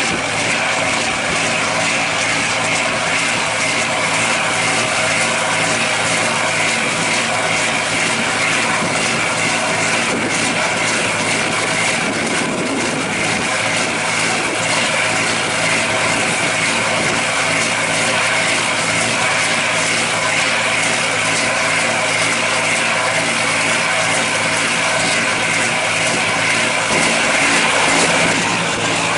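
Fishing boat's Komatsu marine diesel engine running steadily, an even unchanging drone with the cooling water pouring from the hull outlet.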